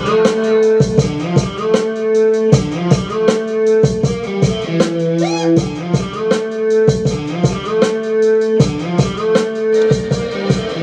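Hip-hop instrumental beat playing: a looping guitar riff over a steady drum-kit pattern of kick and snare hits.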